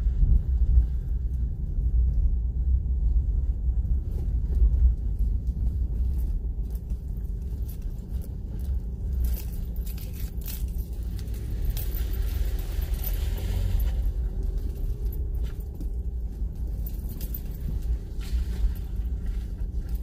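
Cabin noise of a vehicle driving slowly down a rutted dirt road: a steady low rumble from the tyres and suspension, with light rattles and jangling over the bumps. For a couple of seconds past the middle, a rushing hiss rises as the tyres cross a wet, puddled stretch of the track.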